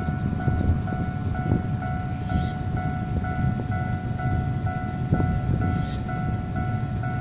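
Railway level crossing warning alarm sounding a repeating electronic beep, about two beeps a second, over the rumble of road traffic.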